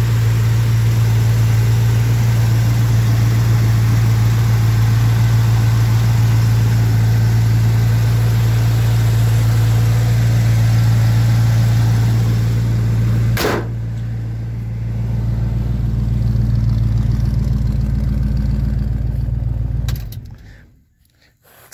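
Chevrolet 350 small-block V8 in a 1985 Chevy C10 idling steadily with a low, even hum. There is a single sharp click about two-thirds of the way through, and the sound cuts off suddenly near the end.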